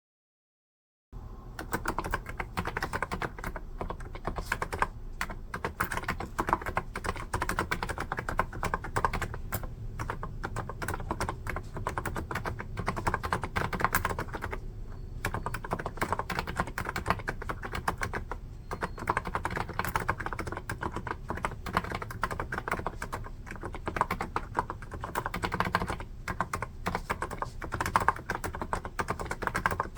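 Continuous fast typing on a NiZ electrostatic capacitive (non-contact) keyboard, starting about a second in: a dense run of soft, poppy keystrokes, the "poko-poko" typing sound.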